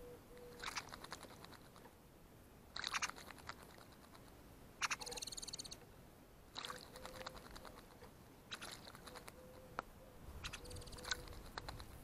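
American robin bathing in a shallow bird bath, splashing water in six short bouts of rapid flicks, each about a second long and roughly two seconds apart.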